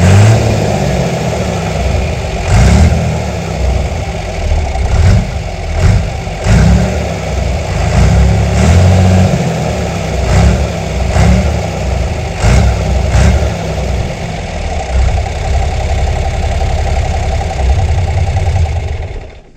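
John Deere 3350 tractor's 6.6-litre six-cylinder diesel engine being revved in repeated quick blips, its pitch rising and falling over and over between stretches of steady running. The sound cuts off suddenly near the end.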